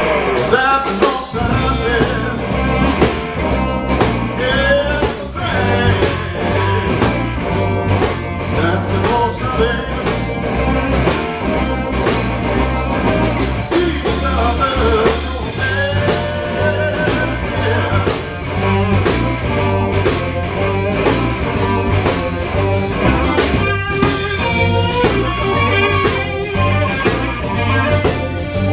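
Live blues band playing: electric guitar with bent notes over a steady bass line and drum kit.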